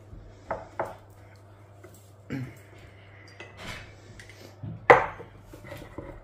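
Metal spoon clinking against a glass bowl and a porcelain cup as a thick spice paste is stirred and water is spooned in: a handful of separate clinks, the loudest about five seconds in.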